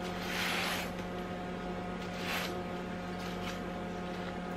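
Steady hum of a washing machine running close by, with two short soft swishing noises, one about half a second in and another around two seconds in.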